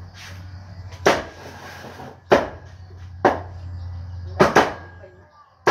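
Cleaver chopping through roast pork: a run of sharp chops about one a second, two of them in quick succession about four and a half seconds in, over a low steady hum.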